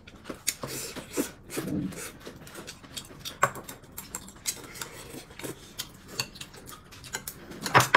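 Scattered light clicks and clinks of utensils against bowls and plates at a meal, irregular and unhurried.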